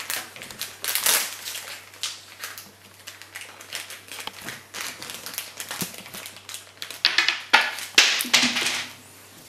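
Plastic blind-bag packet being torn open and crinkled by a child's hands: irregular crackling rustles that come in clusters, loudest a little after seven seconds in.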